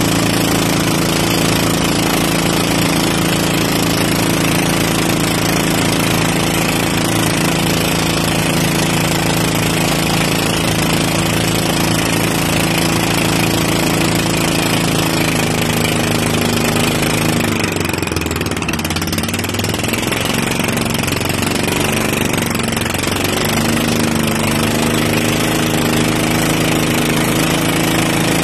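Outrigger boat's engine running steadily and loud under way, with water rushing along the hull. About two-thirds through, the engine note dips and wavers for a few seconds before settling back to its steady pitch.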